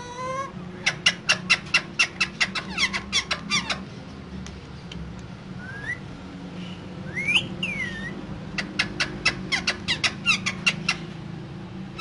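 Caged Alexandrine and ring-necked parakeets calling: two runs of rapid, sharp, repeated squawks, about six a second, with a few rising and falling whistled calls in the pause between them.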